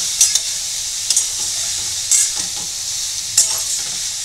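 Shredded cabbage, carrot, capsicum and onion sizzling in a stainless steel kadhai while a steel spatula stirs them. The spatula scrapes the pan in short strokes, about once a second, over a steady sizzle.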